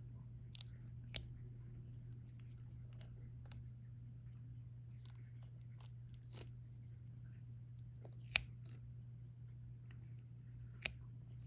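Scattered light clicks and taps of a diamond-painting drill pen picking up resin drills and pressing them onto the adhesive canvas, the sharpest about eight seconds in. A steady low hum runs underneath.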